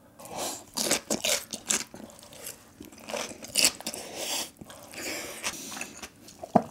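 Crisp crunching and chewing of raw spiral-cut cucumber with tuna, in irregular bites and crunches, with one sharp crunch near the end.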